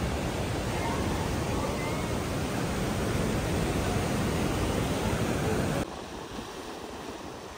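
Sea surf breaking against a rocky shore: a steady rush of water noise that drops abruptly quieter about six seconds in.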